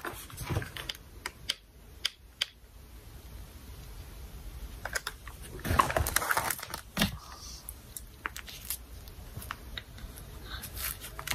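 Light scattered clicks, taps and soft rustling of a plastic mesh shelf liner being folded and handled on a tabletop, busiest about halfway through.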